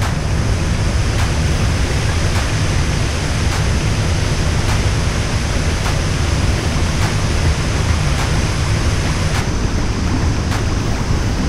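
Waterfall pouring into its pool: a steady, loud rush of falling and churning water, heaviest in the deep low end.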